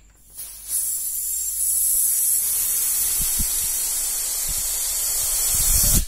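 Air hissing steadily out of the pinched neck of an inflated rubber balloon as it is let down slowly, a long 'fff' like the phonic sound of the letter F. It starts about half a second in and cuts off suddenly at the end, with a few low thuds along the way.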